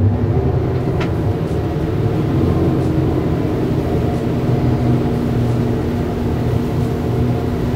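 Triple 300-horsepower Mercury V8 outboards running hard with the throttle down: a loud, steady, deep engine drone.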